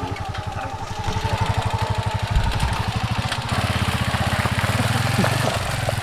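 Small motorcycle engine running steadily while riding, its firing pulses even. It gets louder about a second in and again a few seconds in as the throttle opens.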